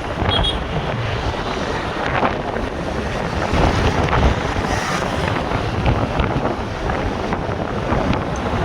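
Steady loud rushing noise, like wind buffeting the microphone.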